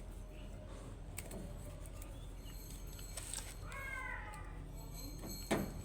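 Steady low hum with a few scattered clicks, a short chirp of falling notes a little before the four-second mark, and a sharp knock near the end.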